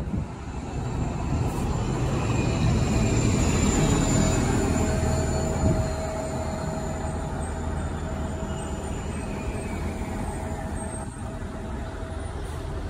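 City transit bus driving off, its engine rumble with a steady whine growing for the first few seconds and easing off after about six seconds as it pulls away.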